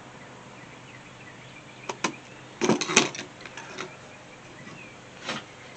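Stitching cord ends being clipped off a leather case: a few sharp snips and handling clicks, a pair about two seconds in, a louder cluster around three seconds and one more near the end.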